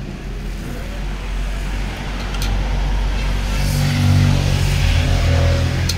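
A motor vehicle's engine running, getting louder about three and a half seconds in, with a couple of sharp clicks.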